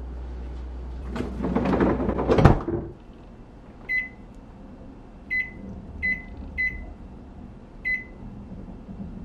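A freezer drawer slides shut and ends in a thud, over a low hum. Then a microwave's keypad beeps five times as its timer is set to seven minutes.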